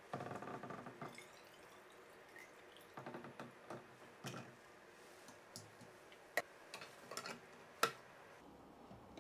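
Ginger beer running from a plastic fermenter spigot into a sample jar for about a second, then a string of light clicks and knocks from plastic fittings being handled (tap, sample jar, airlock), the two sharpest a little past the middle and near the end.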